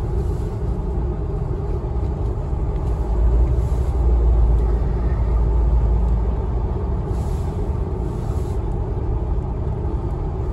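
A car driving, its road and engine rumble heard from inside the cabin. The rumble swells louder for a few seconds around the middle.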